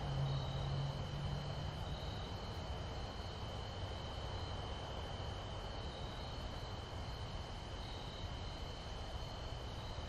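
Crickets trilling steadily, one continuous high note with fainter pulsing chirps above it, over a low outdoor rumble. A low engine drone from a distant vehicle fades out about two seconds in.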